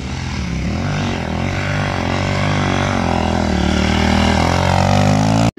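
Motocross dirt bike engine revving as the bike rides across sand, getting louder as it comes closer. Its pitch climbs near the end before cutting off suddenly.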